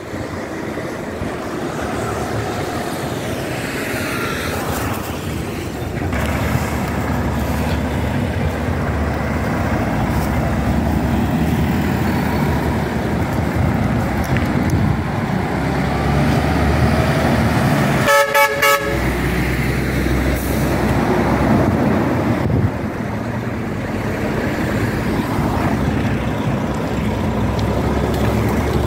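Street traffic: a steady rumble of engines and tyres going by. About eighteen seconds in, a vehicle horn gives a short honk.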